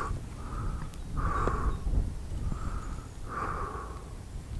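A person breathing slowly close to the microphone: two in-and-out breaths, each about half a second, the second half of each pair stronger.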